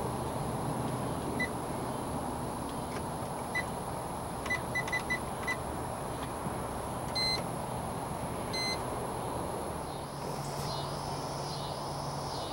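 Short electronic key-press beeps from a marine fishfinder/GPS chartplotter as its buttons are pressed. Single beeps come every second or two, with a quick run of four about halfway through, over a steady background hiss.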